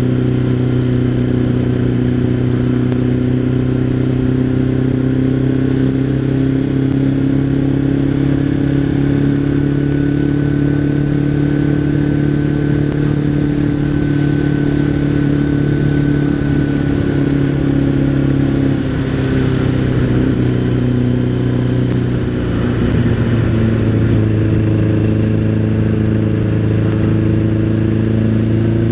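Suzuki Bandit motorcycle's inline-four engine running steadily at road speed, with wind and wet-road noise. The engine note drops a little past halfway and picks back up a few seconds later.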